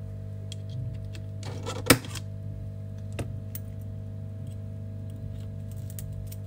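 Small metal hand tools clicking and tapping against shattered phone back glass and the repair mat, with one sharp click about two seconds in and a smaller one a second later, over a steady low hum.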